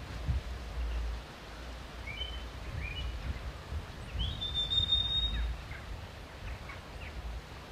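Wind buffeting the microphone as an uneven low rumble, with faint high chirps about two seconds in and a longer held whistled note a little after four seconds.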